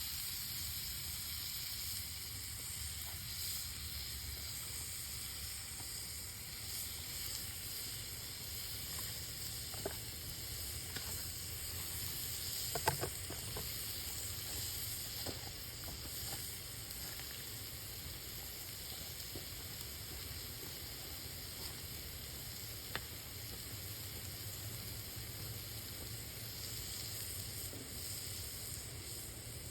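Ground beef frying in a pan over campfire coals: a steady sizzle with a few sharp pops, the loudest about 13 seconds in.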